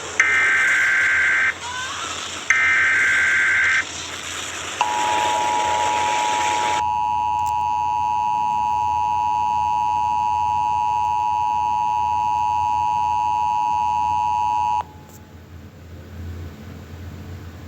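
Emergency Alert System signals: two short, shrill SAME digital data bursts over static hiss, then the steady two-tone EAS attention signal holding for about ten seconds before it cuts off abruptly, leaving a low hum.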